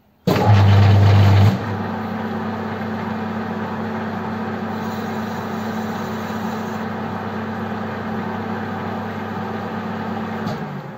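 Metal lathe switched on: a loud low hum for about a second as the motor comes up to speed, then the spindle and chuck running steadily. It is switched off about ten and a half seconds in and runs down.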